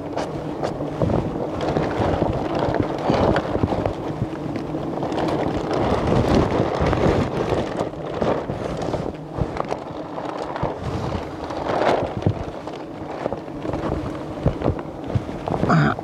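Close rustling and handling noise of a plastic bag and a rain-suit hood as slabs of wild honeycomb are cut and bagged, with scattered knocks. Wild honeybees buzz around the opened comb underneath.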